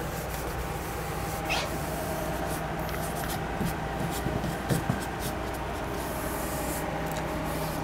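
Damp rag rubbing and wiping along a chair rail molding, cleaning off caulk, with a few light scuffs over a steady low background hum.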